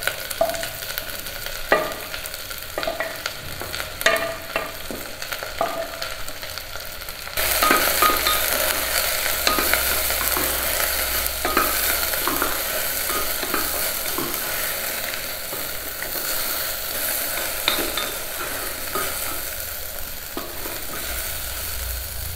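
Potatoes, peas and soya chunks frying in hot ghee in a pan, with a spoon clicking and scraping against the pan as they are stirred. About seven seconds in, the sizzling suddenly gets louder.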